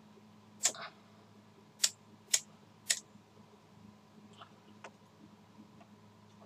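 Sharp clicks from hands working a heat-shrink-covered coax joint: four in the first three seconds, then a few fainter ticks, over a low steady hum.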